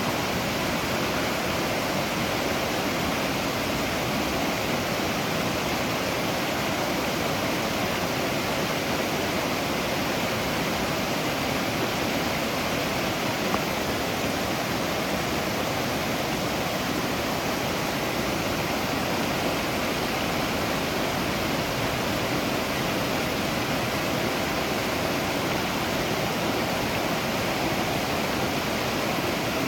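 A waterfall: water pouring and splashing in a steady, unbroken rush.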